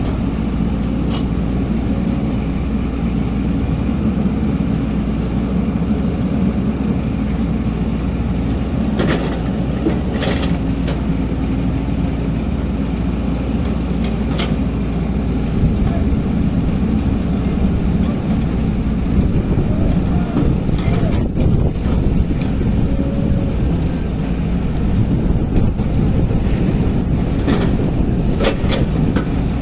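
Hydraulic excavator's diesel engine running steadily under load, with a few short, sharp knocks of metal on metal scattered through it.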